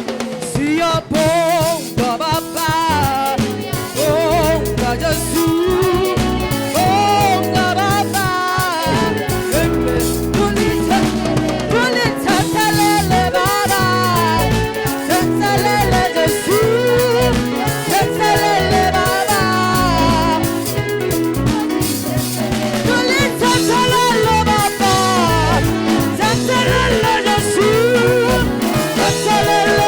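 Upbeat gospel praise song from a live church choir and band: singing over bass guitar, electric guitar and drum kit.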